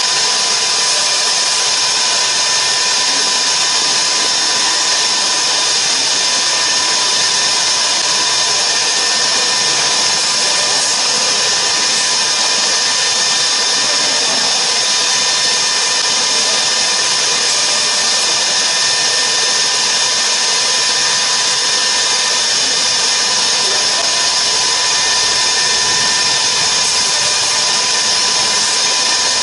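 CNC router spindle running steadily as its bit mills a polystyrene foam block held on the rotary axis: a constant high-pitched whine over a steady hiss.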